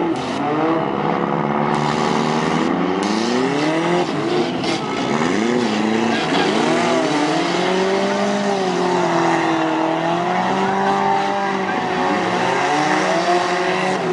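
Several compact cars' engines revving at once in a demolition derby, overlapping pitches rising and falling as they accelerate and back off, over a steady noise.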